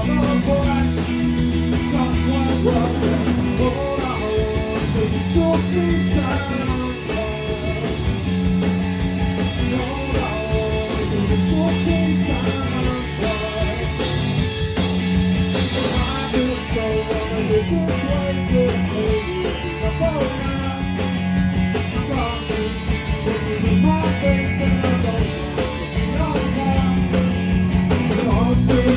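Rock song with a singer, guitar and drums.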